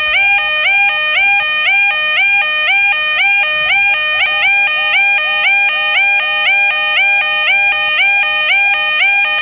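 Electronic level-crossing warning alarm sounding continuously: a two-tone warble in which each low tone slides up to a higher one, repeating about twice a second.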